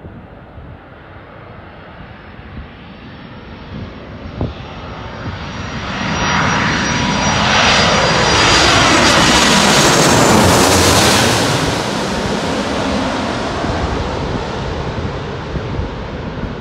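Airbus Beluga XL's two Rolls-Royce Trent 700 turbofan engines on landing approach: a jet rush with a thin whine that grows louder as the aircraft comes in low, is loudest as it passes overhead about eight to eleven seconds in, then fades as it goes on toward the runway.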